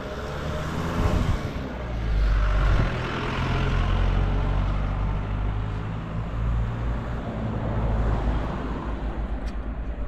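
A motor vehicle passing on the mountain road, a low engine and tyre rumble that builds about two seconds in and eases off after about eight seconds.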